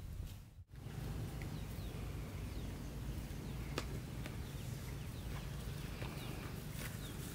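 Outdoor ambience: small birds chirping in short falling notes, scattered throughout, over a steady low rumble, with one sharp click about four seconds in.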